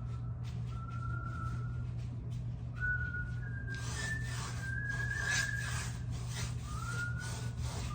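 A person whistling a slow tune in held notes at several pitches, over repeated soft swishing strokes and a steady low hum.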